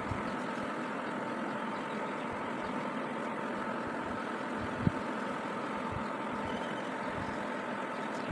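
Steady mechanical hum with one brief thump a little past halfway.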